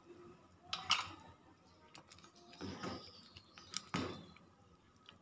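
Scattered light clicks and taps with a soft rustle, three louder ones about one, three and four seconds in, as seasoning and sugar are added to a pot of simmering chicken soup.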